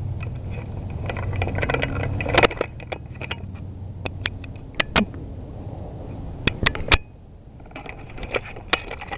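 Rustling and scraping of gear and brush close to the microphone, with many irregular sharp clicks and snaps, over a low rumble in the first two to three seconds.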